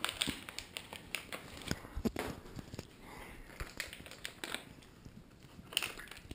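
Irregular clicks, taps and crinkling from things being handled right next to the microphone, with a few louder knocks about two seconds in and near the end.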